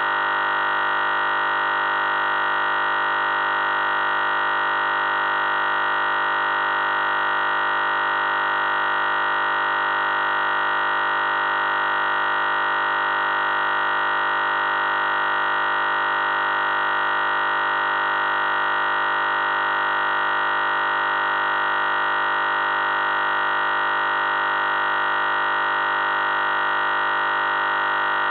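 A continuous electronic drone of many steady tones sounding at once, strongest in the upper middle, with no change in pitch or loudness at all.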